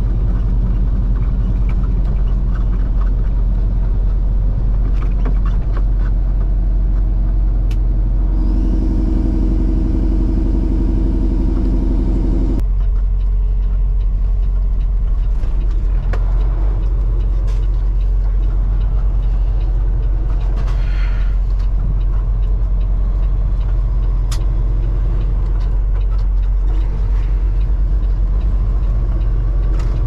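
Semi truck's diesel engine and road noise heard from inside the cab: a steady low rumble while driving. For about four seconds near the middle, the engine note turns higher and buzzier, then cuts off abruptly.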